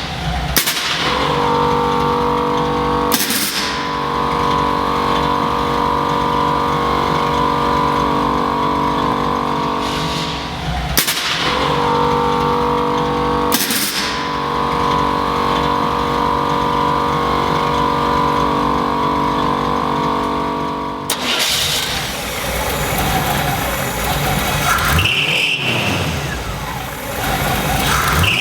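A Chevrolet truck's engine running at a steady speed, heard in several clips spliced together with abrupt cuts. In the last several seconds a different take has a rougher engine note that rises in pitch.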